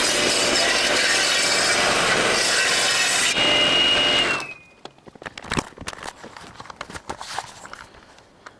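Rockwell 9-inch table saw ripping through a log, the blade cutting loudly for a little over three seconds. The cutting noise then stops, leaving the saw's whine, which sags slightly in pitch and fades over about a second, followed by a few scattered knocks and clatters of wood being handled.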